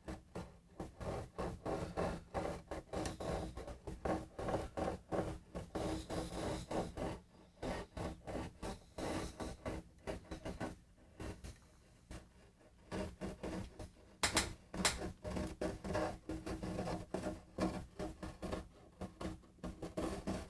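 Hands working a small glue applicator along a guitar's binding channel: a rapid run of small scrapes, clicks and rustles, several a second, easing off briefly twice, with a few sharper clicks about two thirds of the way through.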